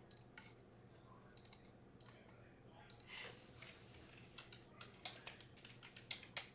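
Faint, scattered clicks and taps of a computer keyboard and mouse being worked, with a brief rustle about three seconds in.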